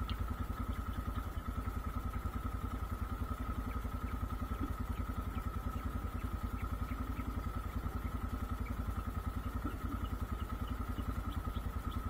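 Motorcycle engine idling, a steady, rapid low putter.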